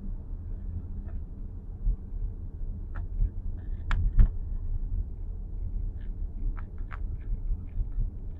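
Low road rumble inside a Nissan X-Trail e-POWER cabin, with a handful of short, irregular clicks and creaks from the dashboard, the strongest about four seconds in: the dashboard rattle that the owner is recording as an abnormal noise.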